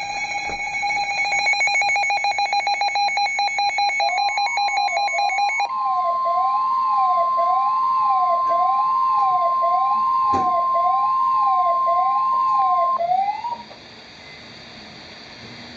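Emergency Alert System warning tones: a rapidly pulsing, buzzy electronic tone for the first few seconds, then a steady alert tone together with a siren-like tone sweeping up and down about once every 0.8 s. Both cut off about thirteen seconds in, leaving a faint hum.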